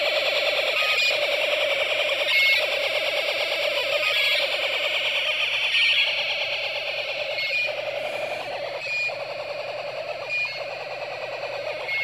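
Electronic burglar alarm built from a Snap Circuits kit, sounding through the kit's small speaker: a harsh, buzzy, continuous alarm tone with short beeps at changing pitches jumbled over it. It gets a little quieter about halfway through.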